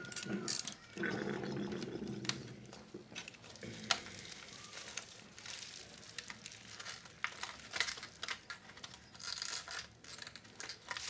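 Hands working small parts into the chassis of a Philips D6350 cassette recorder: scattered clicks and taps of plastic and metal, with some crinkling of the bubble wrap underneath.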